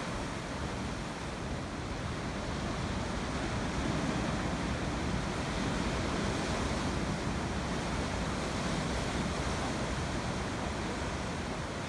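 Sea surf breaking over offshore reefs and washing against the rocks and a harbour breakwater: a continuous wash of waves, swelling a little about four seconds in.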